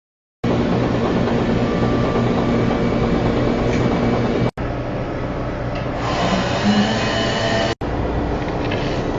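Loud, steady machine-like rumbling noise with a low hum, starting about half a second in and cut off for an instant twice.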